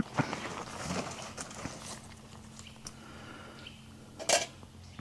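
Light knocks and handling sounds at a small wood-gas camp stove, with one louder, sharp clack about four seconds in.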